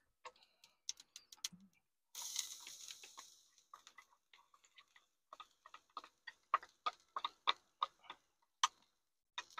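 Faint ticks and taps as minced garlic is poured and scraped from a glass bowl into a stainless steel frying pan with oil. There is a brief soft rush about two seconds in, then a run of light clicks about twice a second through the second half.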